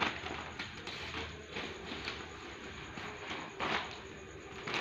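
Sheets of brown paper crackling and rustling in irregular bursts as kittens run and pounce across them, with the loudest burst about three-quarters of the way through.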